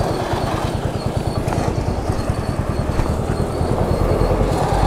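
Water jet from a hose nozzle spraying onto a motorcycle's rear wheel, over the steady, fast, even chugging of the washer pump's motor, which grows a little louder near the end.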